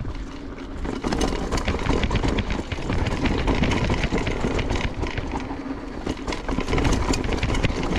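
Mountain bike rolling fast down a dry, loose dirt trail: tyres crunching over dirt and roots while the bike rattles and clatters with many small knocks. It gets louder about a second in.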